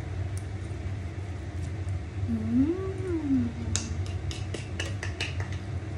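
A person tasting a mouthful of freshly cooked pansit hums one rising-and-falling "mmm" about two seconds in, as she judges the taste. Near the end comes a quick run of light clicks of utensils, over a steady low hum.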